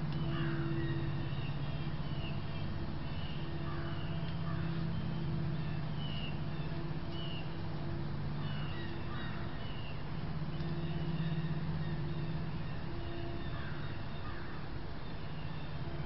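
Birds chirping in short repeated notes, with a lower falling call about every four seconds, over a steady low drone.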